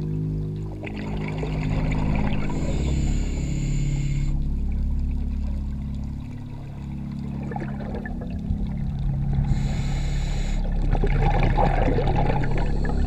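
Underwater sound of scuba exhaust bubbles from a diver's regulator, rushing in bursts every several seconds with crackling bubbles between, over a steady low drone.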